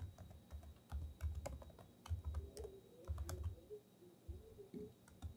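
Typing on a computer keyboard: an uneven run of quick keystrokes, each a short click with a low thump.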